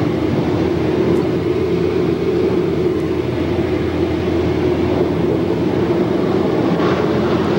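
Automatic car wash machinery running steadily, heard from inside the car's cabin as a continuous loud mechanical noise.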